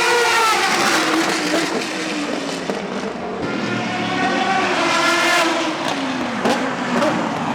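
Historic racing cars passing at speed. The first car's engine note falls away about a second in. A second car's engine rises and then drops in pitch around five to six seconds in.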